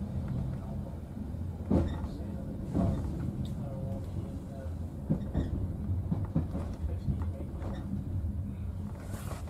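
Diesel multiple unit running along the line, heard from its front cab: a steady low engine drone with wheel and track noise, and irregular knocks and clatter every second or so.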